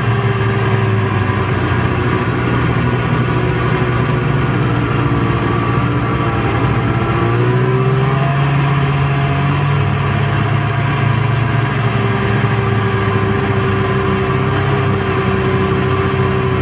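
Snowmobile engine running under way as the sled rides along a trail, recorded close up from the handlebars. Its note is steady, climbing a little about halfway through and then holding.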